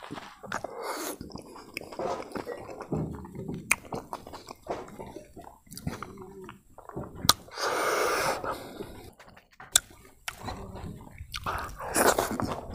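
Close-up chewing and biting of pig's feet and rice eaten by hand, with wet mouth noises and sharp lip smacks at irregular intervals, and a longer breathy hiss about eight seconds in.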